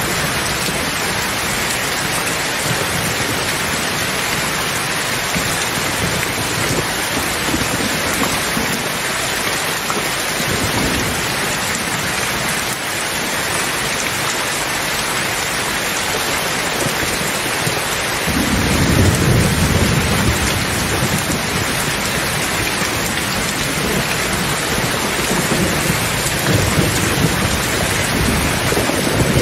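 Heavy rain pouring steadily, with low rolling thunder under it. The thunder swells into a louder rumble about two-thirds of the way through and rises again near the end.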